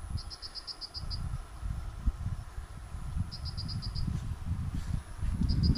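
An insect chirping in three short trills of rapid high-pitched pulses, the last near the end, over an uneven low rumble on the microphone.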